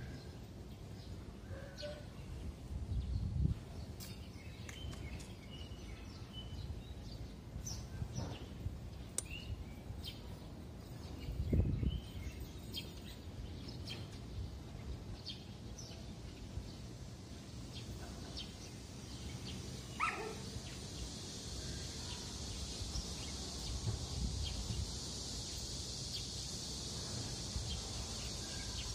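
Outdoor background noise with scattered short bird chirps and a few low thumps; about two-thirds of the way through, a steady high-pitched hiss comes in and holds.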